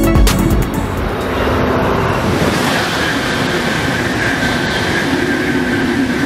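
Eurostar Class 373 high-speed electric train approaching from the tunnel at speed: a steady rush of wheel and air noise, with a high whine joining about two and a half seconds in. Background music stops within the first second.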